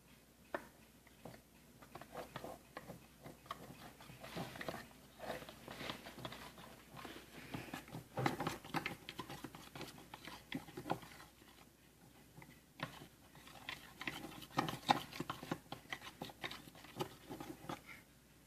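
Irregular scraping, tapping and clicking of a utensil and plastic containers as slime ingredients (glue, paint, borax water) are added and mixed.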